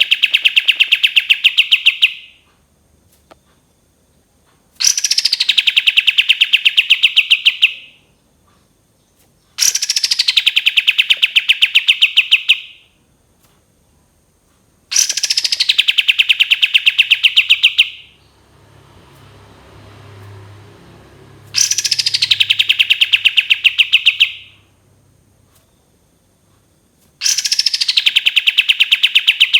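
Kapas tembak bulbul singing its long 'tembakan' phrase over and over. Each phrase opens with a high falling whistle and runs straight into a fast, even rattle of notes lasting about two and a half seconds, and it comes back about every five to six seconds.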